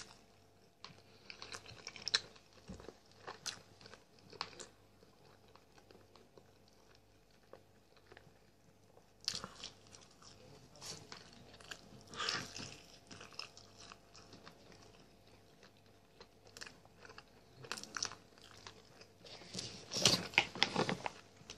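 Close-up chewing and biting of a grilled chicken leg, in irregular clusters of short clicks and crunches with quiet pauses between them. The loudest burst comes near the end.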